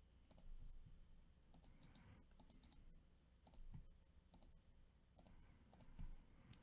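Near silence with faint, scattered clicks from a computer mouse and keyboard.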